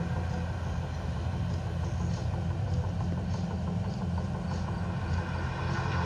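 Ambient electronic soundscape of an outdoor light-and-sound installation: a steady, deep low drone with faint high ticks about twice a second.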